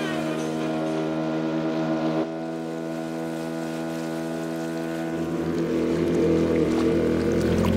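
Small boat outboard motor running at a steady pitch, dropping slightly in level about two seconds in. A rushing noise builds over it near the end.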